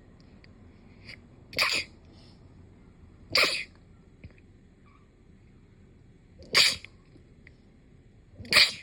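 Four sharp sneezes, the first two about two seconds apart, then a longer pause before two more, the last one near the end.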